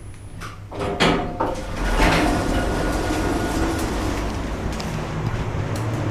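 Lift doors sliding, with a knock about a second in, then a steady rumble as the lift runs.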